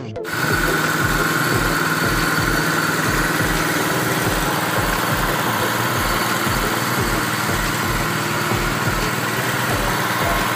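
Tank-mounted electric air compressor switched on and running steadily, a loud even drone that starts abruptly.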